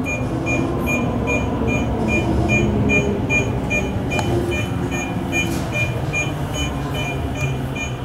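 Tokyo Metro 05 series commuter train running, a steady low rumble. Over it, a short high electronic beep repeats evenly, about three times a second.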